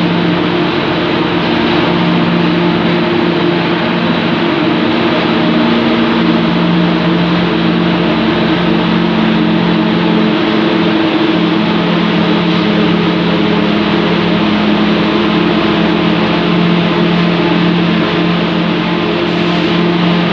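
Automatic corrugated cardboard production line running: a loud, steady machine drone with a few low held tones over a dense mechanical hiss.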